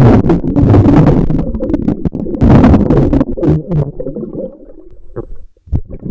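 Loud, muffled rumbling and gurgling of water churning against a waterproof camcorder's microphone, with sudden sharp splashes; it dies away about four to five seconds in.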